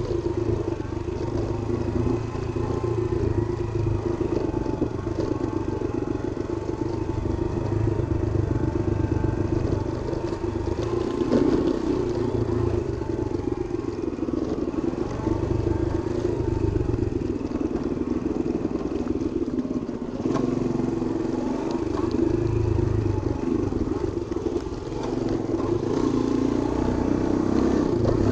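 Small motorbike engine running steadily at low speed while riding, with scattered rattles and knocks from the bike over the rough track.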